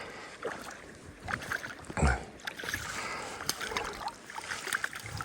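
Water sloshing and splashing around a hooked trout being played toward a landing net, with scattered light knocks and one dull thump about two seconds in.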